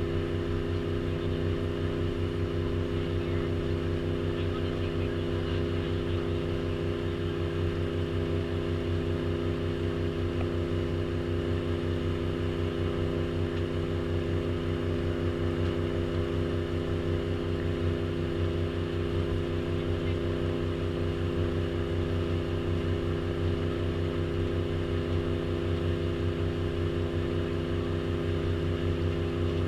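Tour boat's engine running at a steady cruise, an even, unbroken drone.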